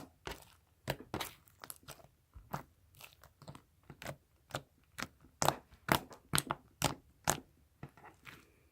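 Activated slime with fishbowl beads being squeezed and folded by hand, making a string of sharp clicks and pops, about three a second, that stop shortly before the end.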